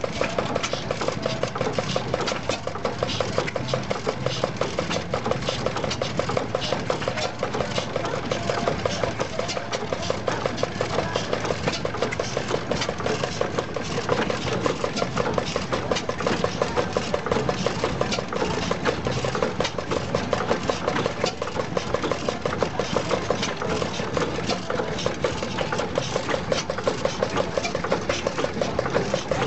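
1923 Ruston Hornsby IP 7HP single-cylinder horizontal stationary engine running steadily, with a fast, even mechanical clatter.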